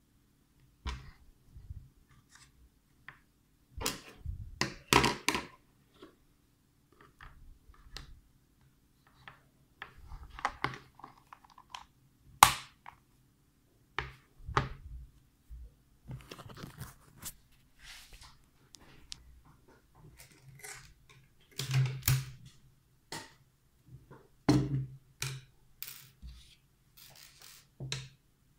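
Handling noise from a clear plastic tackle box and fishing gear on a wooden table: scattered clicks, knocks and rustles as the box is shut and moved about, with a few sharp knocks standing out.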